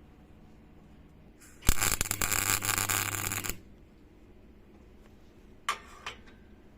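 A small electric motor runs for about two seconds with a rattling buzz and a steady low hum, then stops abruptly; a brief scrape follows near the end.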